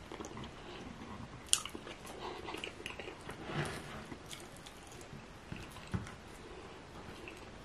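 Chewing and biting of fufu with ogbono soup, eaten by hand, with wet, sticky squishes as fingers pinch and dip the food. There is a sharp smack about one and a half seconds in.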